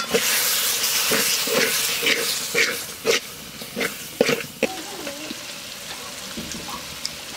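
A metal spatula scrapes and stirs spice paste sizzling in oil in an aluminium pot, the stage of frying the masala down. The strokes come about twice a second. A little before five seconds in the stirring stops and only a quieter sizzle is left.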